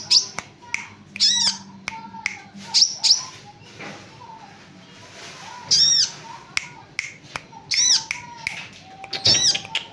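Sunbird (kolibri ninja) singing: short, high, arching chirps repeated roughly every second, with sharp clicks in between.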